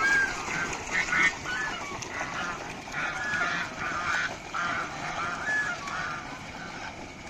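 Geese honking over and over in short, overlapping calls, several a second.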